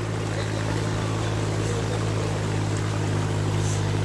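Water rushing and splashing over rocks into a pool, over a steady low mechanical hum.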